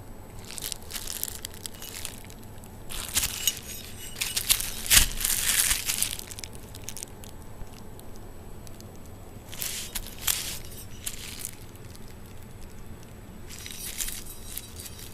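Packaging being handled and crinkled in several bursts, loudest a few seconds in, with a few sharper crackles and rustles.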